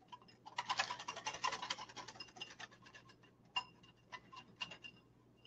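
Wire whisk beating flour and cold milk into a slurry in a glass bowl, the wires clicking and scraping rapidly against the glass. After about three seconds the strokes thin out to a few separate taps.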